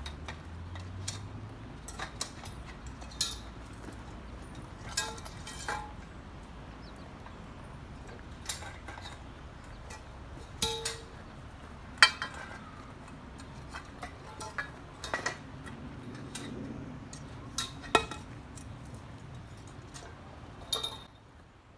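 Metal parts of a freestanding aerial rig knocking and clinking as it is taken apart: scattered sharp knocks every second or two, a few louder than the rest, over a steady low background noise.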